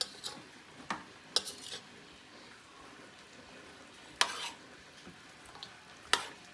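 A metal spoon stirring green beans and bacon in a stainless steel pan, giving a handful of sharp clinks and scrapes against the pan; the loudest come about four and six seconds in. A faint steady hiss runs underneath.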